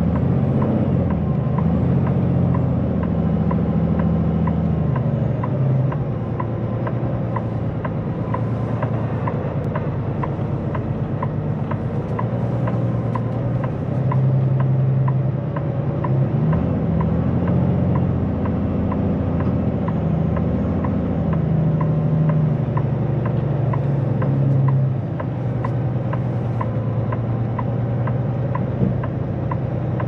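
Kenworth T880 semi truck's diesel engine pulling a heavy lowboy trailer through wet mud, its note rising and falling as the throttle comes on and off. A light regular ticking runs under it, about two ticks a second.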